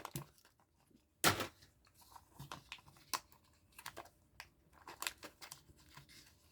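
Handling of a Kinder Joy egg's foil wrapper and small plastic parts: a short rustle of the wrapper about a second in, then scattered light crinkles and clicks.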